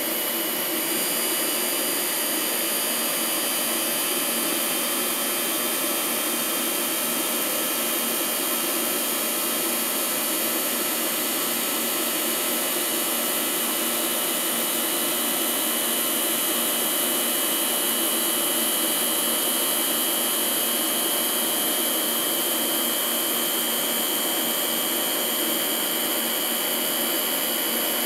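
Air-bearing sphere grinder running: the grinding-wheel spindle and the air-bearing workpiece spindle turn at high speed with a steady high-pitched whine and hiss while the wheel grinds a small sphere.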